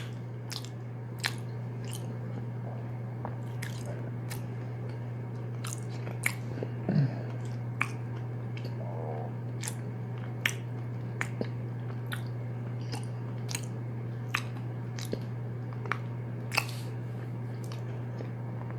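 Close-miked chewing of a mini chocolate cupcake: moist mouth clicks and smacks about once a second over a steady low hum.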